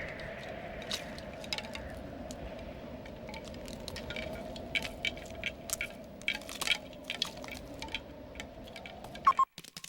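Animated-film sound effects: a steady low hum with many small scattered clicks and ticks. A sharper, louder click comes near the end, just before the sound cuts off abruptly.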